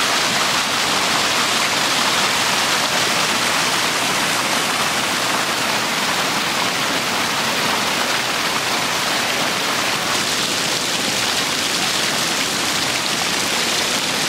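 Rainwater gushing out of storm-drain outlets in a curb and splashing onto paving, a steady rushing and splashing with no break.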